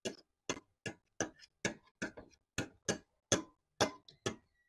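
Steady clock-like ticking, about two sharp ticks a second, with silence between the ticks.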